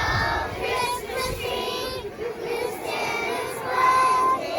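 Children singing a song, with held sung notes, one held longer toward the end.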